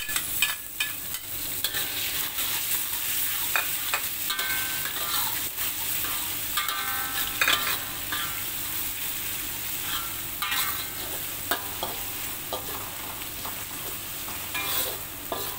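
Pounded shallots and garlic sizzling in hot oil in a metal wok, being sautéed until fragrant. A metal spatula stirs them throughout, making repeated scrapes and short ringing clinks against the wok.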